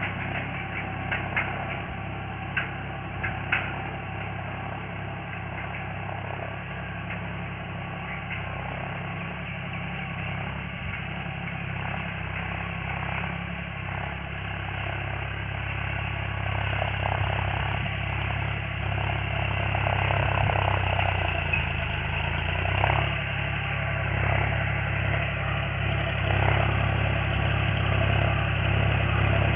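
John Deere farm tractor's diesel engine running steadily under load while pulling a disc harrow through the soil, growing louder as the tractor comes back toward the listener. About 21 seconds in, the engine note dips in pitch and then recovers.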